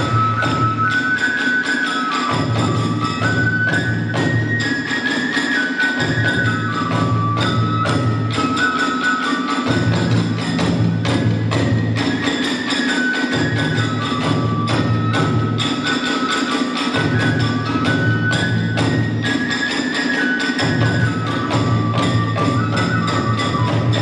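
Kagura festival music: a high bamboo flute plays a stepping melody over fast, continuous drum beats and clashing hand cymbals, accompanying the dance.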